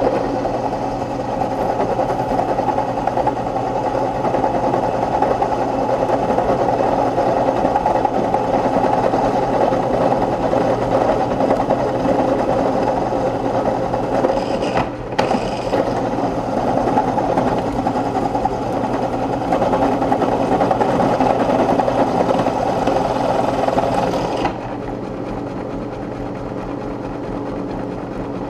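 Drill press running a carbide drill bit that grinds steadily into a hardened high-speed-steel drill bit. The cutting eases off briefly partway through. Near the end the cutting stops and only the drill press motor and spindle keep running.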